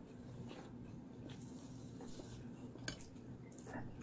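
Quiet room tone with a low steady hum and a few faint, soft clicks scattered through it.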